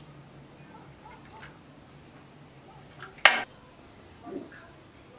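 Serving soup with a metal ladle from a large aluminium pot: faint small clinks, then a single sharp metallic clink with a brief ring about three seconds in as the ladle strikes the pot.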